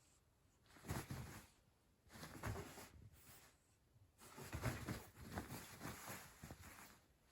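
Kitten scampering and pouncing on futon bedding: cloth rustling and scratching with soft padded thumps, in three short bouts.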